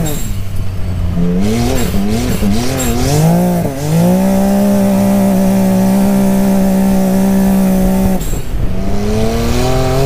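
Can-Am Maverick X3's turbocharged three-cylinder engine under hard acceleration, heard from the cockpit. For the first few seconds the revs rise and fall with the throttle, then they hold high and steady for about four seconds, dip about eight seconds in, and climb again near the end.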